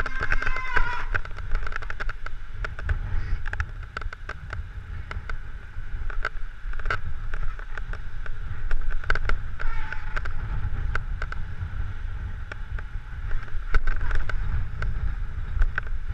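Mountain bike clattering over a rough, rocky trail, with many sharp knocks and rattles as the wheels hit stones, over a steady low rumble of wind on the helmet-mounted camera.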